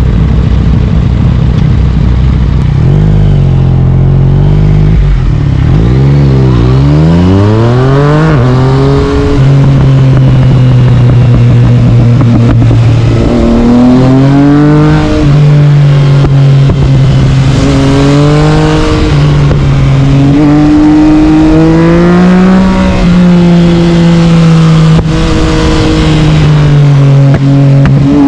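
Yamaha MT-09 inline-three engine through an Akrapovic carbon exhaust, accelerating through the gears. The engine note climbs steeply, holds steady for a few seconds, then rises and drops back several times as the gears change.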